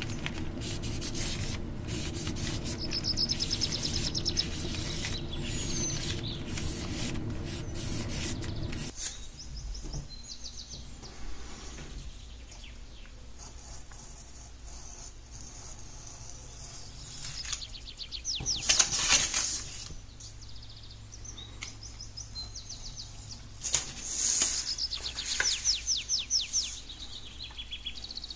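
Charcoal stick scraping and rubbing across paper in quick repeated strokes, which stops abruptly about nine seconds in. After that, birds chirp and trill in short runs in the background, loudest around two-thirds of the way through and again near the end.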